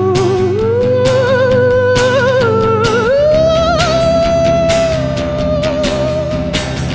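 Live band music: drums keep a steady beat under a held bass while a sustained melody line with vibrato slides upward, stepping up to a higher held note about three seconds in.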